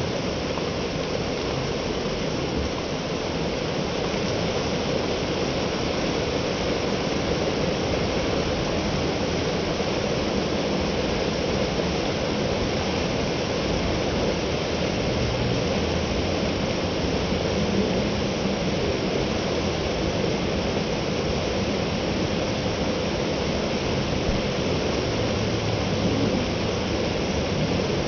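Waterfall: water falling in thin streams and spray down a mossy rock face, a steady rushing hiss.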